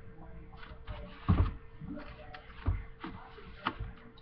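A few soft knocks and scrapes as a knife and plate are handled, over a faint steady hum.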